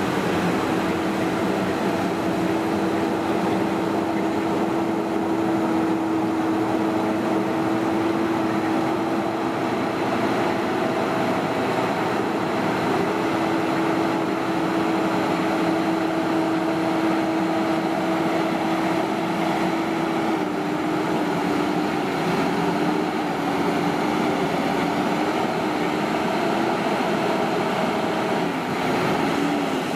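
Mercedes-Benz Actros heavy-haul tractor's diesel engine running at steady revs while slowly pulling a heavy-load trailer: a steady drone with a held tone. About two-thirds of the way through the pitch wavers and dips a little, and near the end it drops away as the revs come down.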